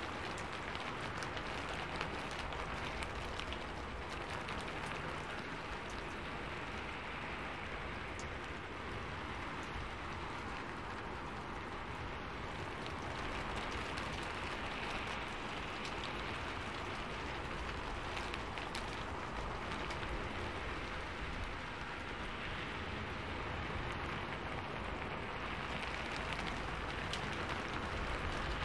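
Steady rain falling, an even hiss of rainfall with scattered sharp ticks of individual drops striking surfaces.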